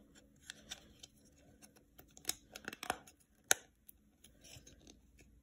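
Light plastic clicks and taps from handling a clear plastic diamond-painting drill tray and its stopper, a scattered series of small clicks with the sharpest about three and a half seconds in.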